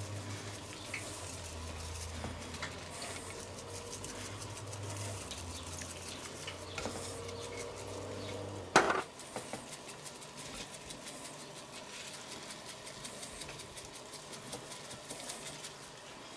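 Faint kitchen sounds: a low hum and a light, steady crackle of small ticks, with one sharp click about nine seconds in, where the hum stops.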